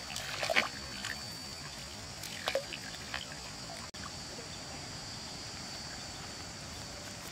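A hooked fish thrashing and splashing at the surface of a pond as it is pulled out on a bamboo fishing pole, with short splashes at about half a second and again near two and a half seconds in, then water dripping off it. A steady faint high-pitched hum runs underneath.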